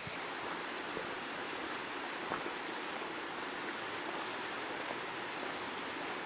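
Steady rushing of running water from a mountain stream, an even hiss with no rhythm.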